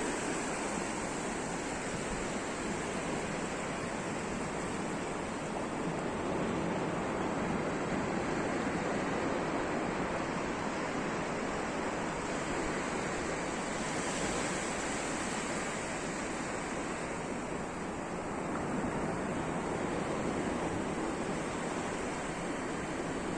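Sea surf washing steadily on a shore, an even rushing noise with no clear breaks, over a constant thin high hiss.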